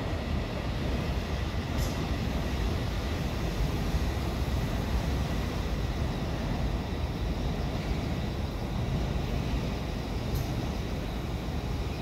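Steady low rumble of a Seoul Line 1 rheostat-control electric train running away into the distance, fading slightly. Two faint short clicks come about two seconds in and again near the end.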